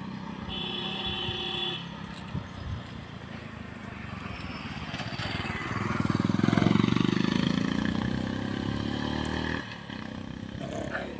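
Motor vehicle engine running on the road. It swells loud about six seconds in and drops away at about nine and a half seconds, as a vehicle passes. A short steady tone sounds about half a second in.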